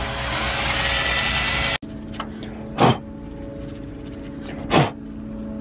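Cordless drill running under load, drilling a dimple through a set-screw hole into the bronze shell of a cutless bearing, its motor whine rising slightly; the drilling cuts off abruptly a little under two seconds in. Two short sharp noises about two seconds apart follow over a steady low hum.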